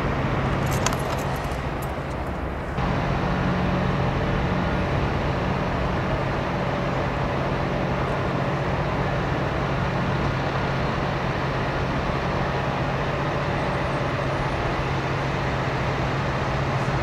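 Heavy engines running steadily: a constant low drone and hum, with a few sharp clicks in the first two seconds.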